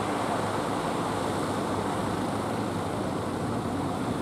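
Steady roar of breaking surf, with a low drone of fishing-boat engines under it.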